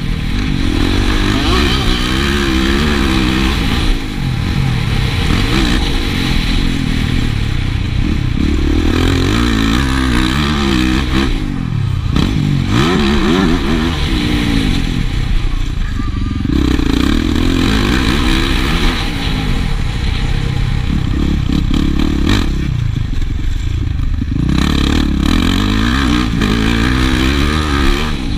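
Yamaha motocross bike's engine revving hard through the gears, its pitch climbing and falling again and again, with several sudden drops as the throttle is shut off.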